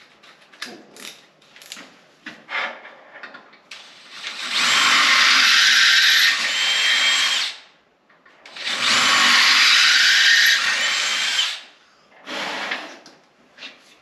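Cordless drill with a 3/8-inch bit reaming out undersized bolt holes in a mini bike's stock handlebar clamps. It runs in two long bursts of about three to four seconds each, with clicks and handling knocks before, between and after them.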